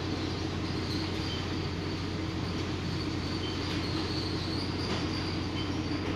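Steady machine hum with a faint high whine and hiss, unchanging throughout.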